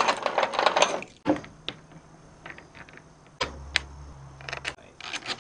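Small metal bolts and handlebar clamp parts clicking and clinking as they are handled, a quick flurry of clicks in the first second, then scattered single clicks. A low rumble runs for about a second and a half midway.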